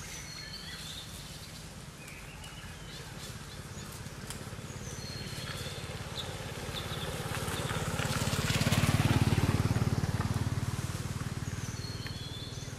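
A motor vehicle passing by, growing louder to a peak about nine seconds in and then fading away. Short high chirps come near the start and near the end.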